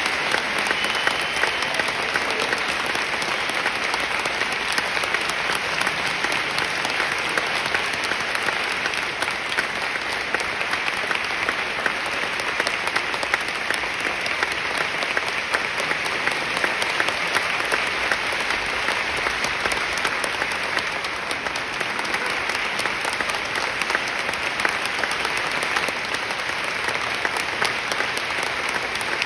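Audience applauding steadily, many hands clapping at once in a dense, unbroken patter.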